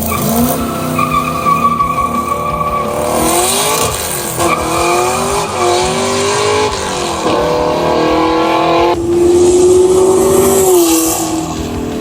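Race car engine sounds revving, their pitch sliding up and down, with tire squeals.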